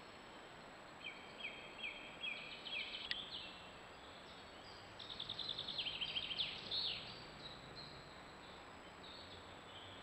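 Songbird singing over a steady hiss: two bursts of short, high notes, each note repeated several times, about a second in and again around five seconds in. A single sharp click sounds about three seconds in.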